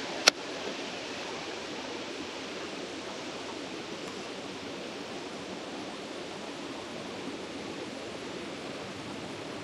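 Steady rushing of flowing water, with a single sharp click about a third of a second in.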